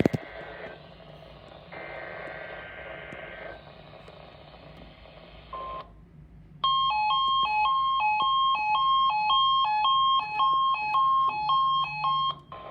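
Midland ER10VP weather radio receiving a Required Weekly Test: the screechy SAME data-header bursts of the test come through its speaker over radio hiss. After a short beep, a loud electronic alarm beeps in a fast two-pitch alternation for about six seconds, then cuts off.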